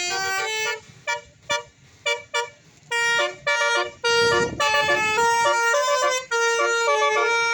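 Bus telolet horn (Basuri multi-tone electric horn) playing a tune in quick stepped notes: a run of notes at first, short scattered toots with gaps, then a longer unbroken melody from about three seconds in.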